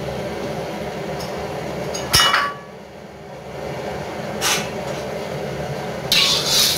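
Kitchen sounds at the stove. A sharp metal clink of a pan or utensil comes about two seconds in, and a softer knock follows a couple of seconds later. Near the end a steady hiss starts, as the oil in the pan heats up.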